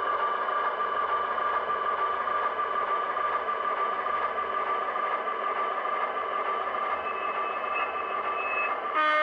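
HO-scale model diesel locomotive running along the track with a steady humming tone, and a short, louder tonal blast near the end.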